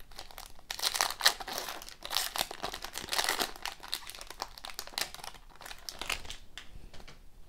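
Foil wrapper of a hockey card pack crinkling and tearing as it is ripped open by hand, in a run of irregular crackles that fade near the end as the cards come out.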